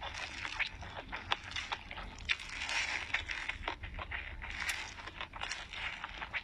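Close-miked chewing and mouth sounds of a person eating a steamed dumpling: irregular small wet clicks and crackles, several a second, with a louder stretch of bite noise a few seconds in.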